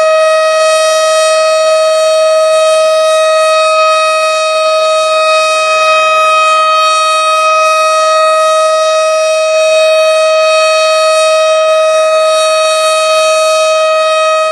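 Civil defence siren sounding one steady, unwavering tone: the commemorative siren that marks the 09:05 moment of silence.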